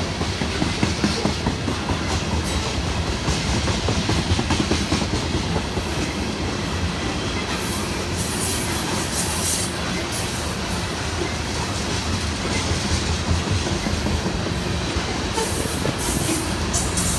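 Loaded ethanol tank cars of a freight train rolling past, their wheels rumbling and clicking steadily over the rails. Now and then a brief high-pitched wheel squeal cuts in.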